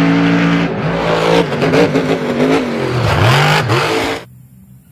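Monster truck engine revving loudly, the pitch dipping and climbing back about three seconds in, then cutting off abruptly near the end.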